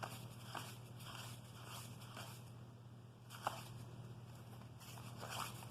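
Trading cards and wax pack paper being handled: soft, scattered paper clicks and rustles as cards are flipped, with a sharper snap about three and a half seconds in, over a low steady hum.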